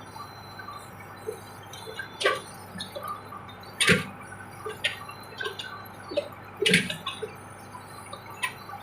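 Case 580 backhoe running steadily under a scatter of sharp metallic clinks and knocks from the digging work, the three loudest about two, four and seven seconds in.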